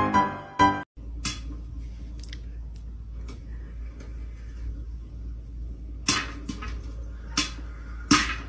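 Piano music ends about a second in. Then popcorn kernels pop in a countertop stirring popcorn maker: scattered sharp pops, a few at a time, the loudest near the end, over a low steady hum.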